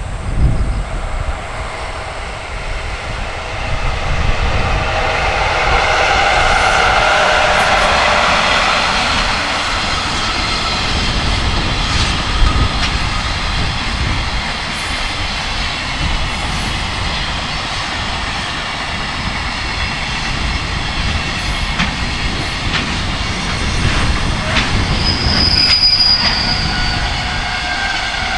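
Freight train hauled by an electric locomotive passing on the rails, its rumble swelling about four seconds in and staying loud, with a brief high wheel squeal near the end. Strong wind buffets the microphone throughout.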